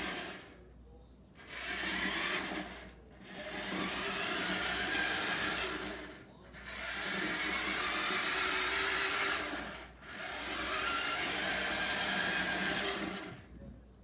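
Small electric drive motor of a vintage wired-remote-control butler server toy whirring as it rolls across a laminate floor. It starts and stops in about five runs of one to three seconds each, with short pauses between.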